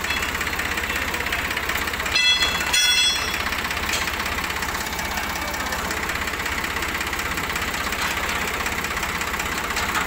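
Tractor's diesel engine idling steadily with an even low chugging. Two short high-pitched screeches stand out about two and three seconds in.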